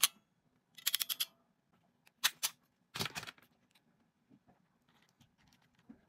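Handling noise from a hand crimping tool and small parts: sharp clicks and rattles in short groups. There is one click at the start, a quick run of about six clicks about a second in, two clicks a little after two seconds, and a dense clatter around three seconds.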